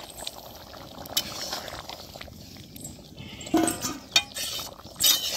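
A spoon scraping and clinking against a kadai as fried eggs are added and stirred into a simmering gravy, with sharp clicks scattered throughout and the loudest near the end. A short call is heard about three and a half seconds in.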